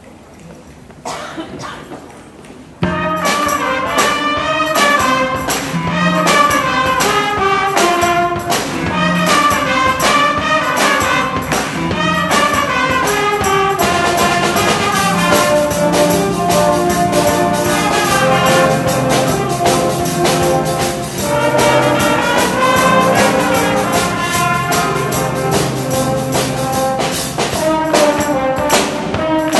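A student band starts playing about three seconds in: trumpets over electric guitar and drum kit, with a steady beat and cymbals ticking along in the second half.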